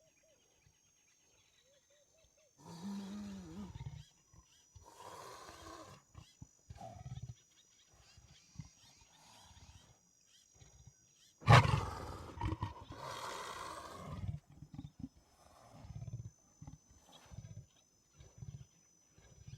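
Big cat roaring: a roar about three seconds in, another around five seconds, and the loudest starting abruptly about eleven and a half seconds in, with short low grunts in between.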